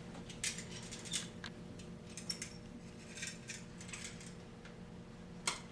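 Light, scattered metallic clicks and rustles of locking-pliers (vice grips) and a folded cloth being handled against the sling's edge, over a faint steady hum.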